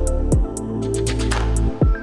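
Electronic background music with a steady beat: regular crisp hi-hat ticks over sustained tones, and deep bass notes that drop sharply in pitch, one near the start and one near the end.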